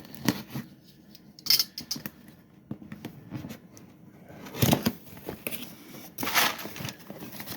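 Packaging rustling and tearing as a new ATV wiring harness kit is unpacked, with irregular clicks and small knocks of parts being handled; three louder crinkling bursts stand out.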